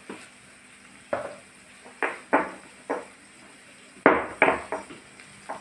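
Stone pestle pounding red chilli, garlic and salt in a stone mortar: about eight dull knocks, spaced out at first and coming faster from about four seconds in.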